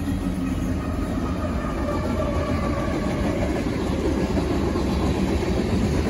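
Freight train passing close: its trailing diesel locomotives running by, then covered hopper cars rolling over the rails. The sound is a steady low rumble, slowly growing louder.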